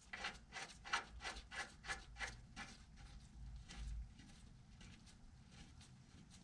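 Rubber dust boot being worked by gloved hands onto a tie-rod end ball joint: a quick run of short rubbing strokes, about three a second, that die away after about three seconds.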